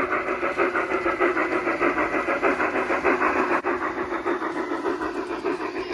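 Large-scale garden-railway model steam locomotive pulling coaches along outdoor track, making a quick, even rhythmic clatter as it runs.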